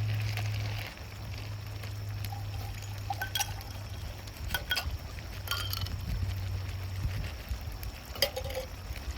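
Liquid being poured, with about four light clinks scattered through it, over a steady low hum.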